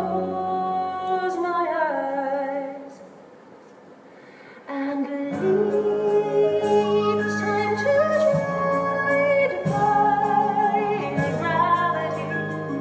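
A woman singing with a theatre pit orchestra in a live musical-theatre performance. The music falls quiet about two and a half seconds in, then the orchestra comes back in full with held chords under the voice.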